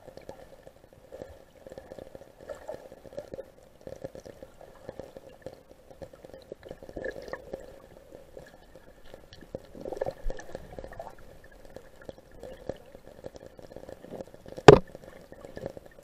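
River water heard through a submerged camera: muffled gurgling with scattered small clicks, and one sharp knock near the end.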